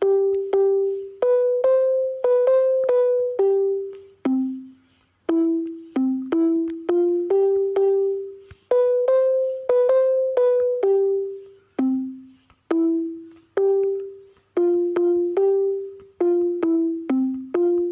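A simple melody played one note at a time on a musical instrument, each note struck sharply and dying away, a few notes a second.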